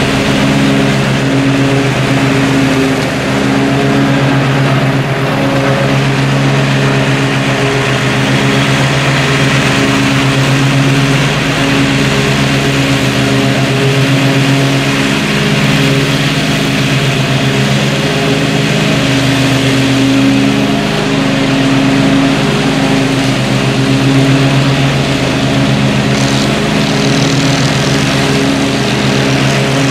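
Zero-turn riding mower's engine running steadily under load with the blades engaged, cutting and mulching thick, tall weeds.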